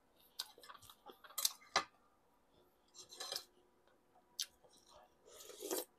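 Eating sounds: a man chewing stewed pork ribs, with scattered short clicks and light clinks of a metal spoon against the plate.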